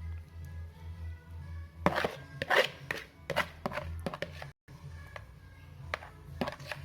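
A run of sharp knocks and clacks of kitchenware on a hard surface, clustered from about two seconds in, with a few more near the end, over soft background music. The sound cuts out briefly partway through.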